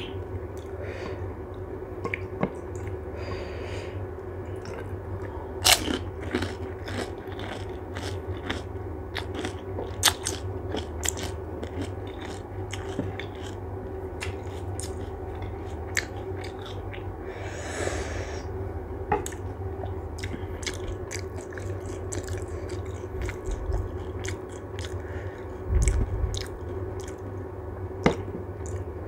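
Panipuri being eaten close to the microphone: crisp puri shells crunching in irregular, sharp bites, with chewing in between. A steady low hum runs underneath, and there is a brief noisy swish about two-thirds of the way through.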